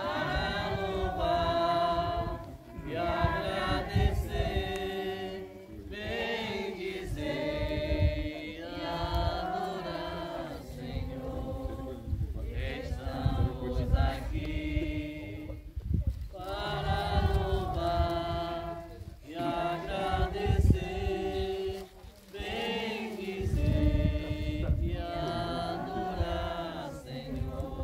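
Mourners singing a slow religious hymn together, held notes in phrases of a few seconds with short breaks between them.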